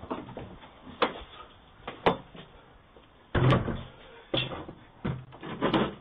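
About half a dozen sharp bangs and knocks of a wooden gate and house door, roughly a second apart, the loudest about halfway through, heard thin through a doorbell camera's microphone.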